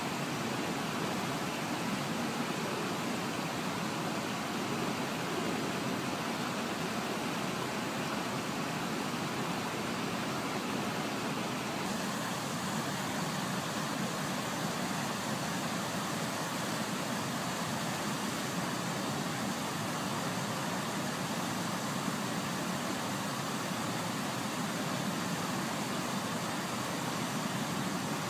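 Steady rushing of a river over rocks, with the electric motor and gears of a scale RC rock crawler whirring under it as the crawler climbs.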